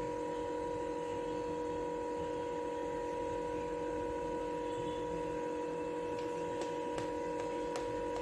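Steady electrical hum made of several constant tones, unchanging throughout. A few faint clicks come near the end.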